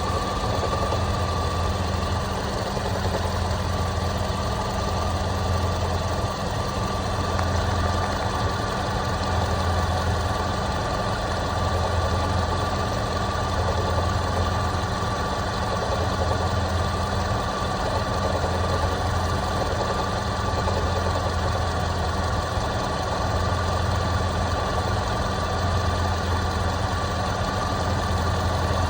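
Toyota 2TR-FE 2.7-litre four-cylinder petrol engine idling steadily, with a steady high whine running through it. It carries the knock that the owner hears after a rebuild, one that comes and goes and turns constant once warm, with oil pressure around 1.2.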